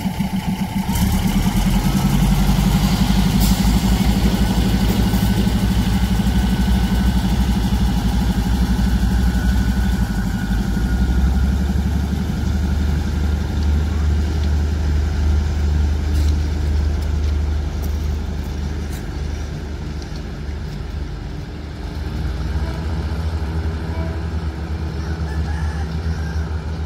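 Diesel railcar train's engines running steadily with a deep, low throb; about eleven seconds in the engine note drops lower and grows stronger.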